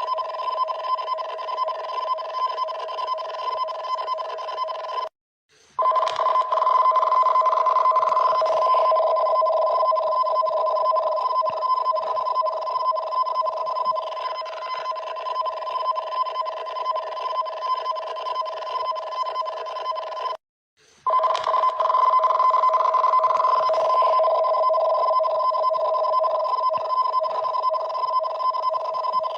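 Japanese emergency warning broadcast alarm signalling a tsunami warning: a loud, steady electronic alert tone of two pitches sounding together over a hiss. It breaks off for about half a second twice, about five seconds in and again about twenty seconds in, as the alarm repeats.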